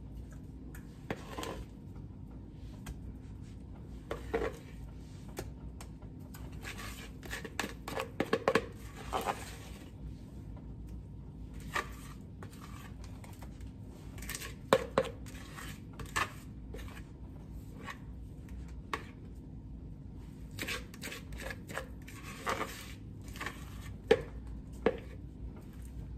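Spatula scraping thick cake batter out of a plastic mixing bowl and dropping it into a foil baking pan, in scattered short scrapes and taps, over a faint steady background hum.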